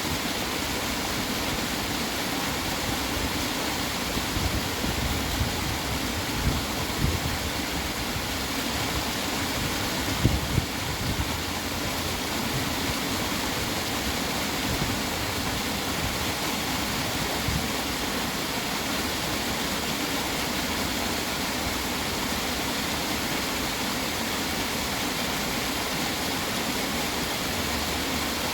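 Steady rush of naturally running water, a stream or small waterfall, with a few brief low bumps between about four and eleven seconds in.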